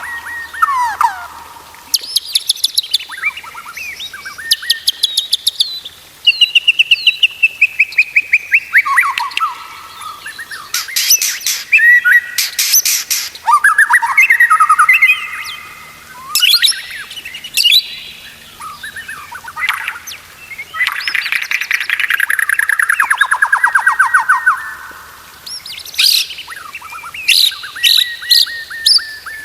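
White-rumped shama (murai batu) singing a long, varied song: whistled phrases, runs of fast repeated notes and rapid trills, with barely a break.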